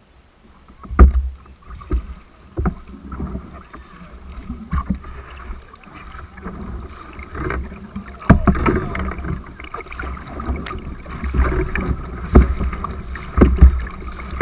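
Canoe being paddled down a river: irregular knocks and thumps of the paddle against the hull over water splashing and rushing along the boat. The water gets louder about halfway through.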